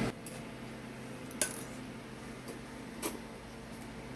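Cutlery clinking against bowls: a few sharp clinks, the loudest about a second and a half in and another about three seconds in, over a faint steady hum.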